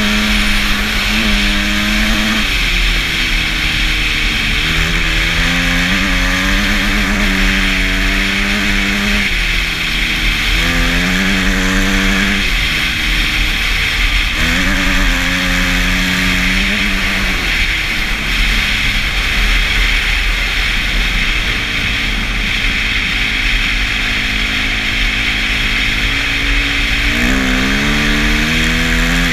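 Dirt bike engine pulling hard up through the gears: the pitch climbs, drops at each shift, and climbs again, several times. Wind rushes loudly over the microphone throughout.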